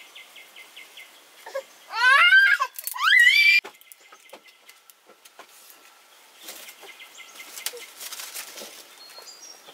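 A young child's voice in two short, loud, rising squeals, about two and three seconds in. Faint scattered taps and knocks follow.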